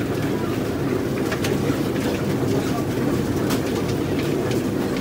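Steady low rumbling noise with a few faint knocks and clicks as a skinned chicken is handled on a wooden chopping block.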